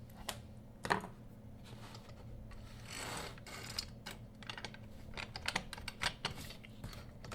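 Glides of a Glydea curtain traverse track clicking and rattling as they are slid out of the track. The clicks are short and irregular, with a brief scraping swish about three seconds in.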